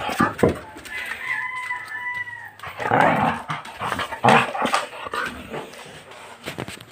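A dog growling and barking in short, irregular bursts while playing rough, with a thin, steady high whine held for about a second and a half near the start.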